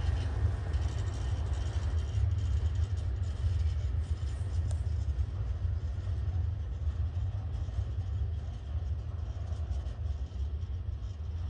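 A long coal train of hopper wagons rolling slowly along the track, a steady low rumble that eases slightly near the end as the wagons draw away.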